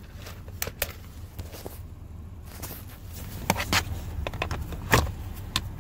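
Scattered sharp clicks and knocks of a clear plastic parts organizer box and plastic trim being handled by gloved hands, the loudest knock about five seconds in.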